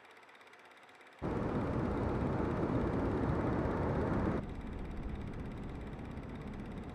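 Ocean surf with wind noise, starting abruptly about a second in and dropping to a quieter level about halfway through.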